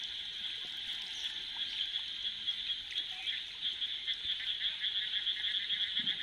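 Frog chorus from the rain-flooded field: a steady, high-pitched mass of calls with rapid pulsed trills, typical of frogs calling after the first rains.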